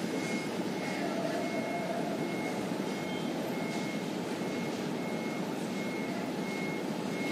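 Steady background noise with a faint, high electronic beep repeating evenly, a bit more than once a second.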